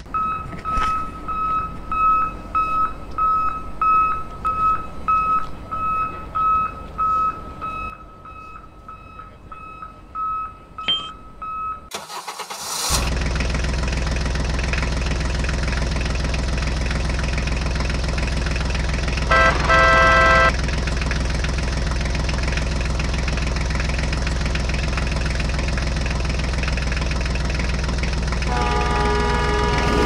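Dubbed vehicle sound effects for a toy tractor: a high electronic beep repeating about twice a second over a low engine, then after a short break a steady engine running, with a loud horn honk a little after the middle and another starting near the end.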